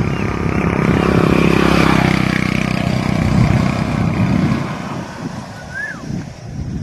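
A motor vehicle engine running, growing louder over the first couple of seconds and fading after about five. A short high chirp comes near the end.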